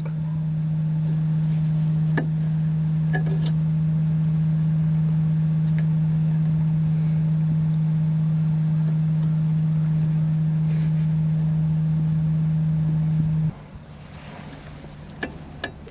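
A steady low electrical or motor hum that cuts off suddenly near the end, with a few light clicks over it.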